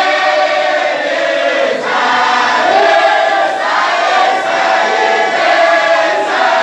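A large group of men chanting a Sufi wadifa (dhikr) together, one continuous unison chant with its pitch rising and falling.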